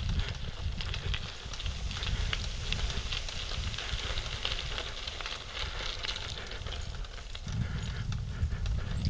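Bicycle ridden along a dirt forest trail: a steady crackle of small clicks and rattles from the tyres and bike, under wind rumble on the microphone that eases about a second in and comes back strongly near the end.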